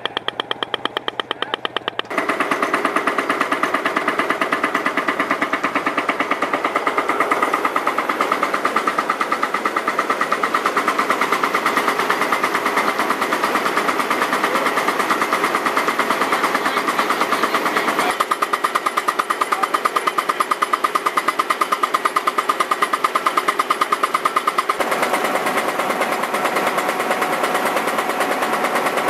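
Rapid, steady hammering of a Hammerhead 8-inch pneumatic pipe-bursting impactor, along with the running engine of a Ditch Witch JT2720 directional drill pulling it through the old sewer line. The sound jumps in level about two seconds in and shifts again twice later.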